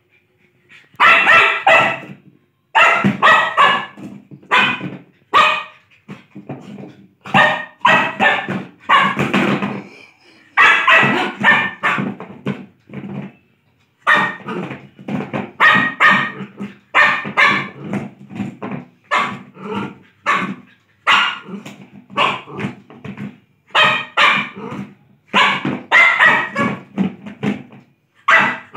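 Lhasa Apso barking over and over, short sharp barks in quick runs with brief pauses between them, starting about a second in.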